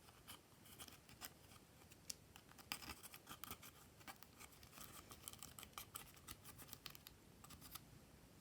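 Faint, irregular sticky clicks and crackles of slime being kneaded and stretched by hand.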